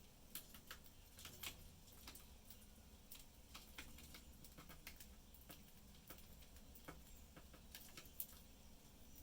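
Budgies cracking seeds with their beaks: faint, irregular small clicks, several a second.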